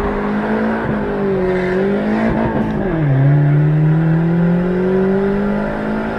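Turbocharged Fiat Palio Fire 1.0 four-cylinder engine with a budget 'kit padaria' turbo, pulling under acceleration, heard from inside the cabin. The revs drop at a gear change about three seconds in, then climb steadily again.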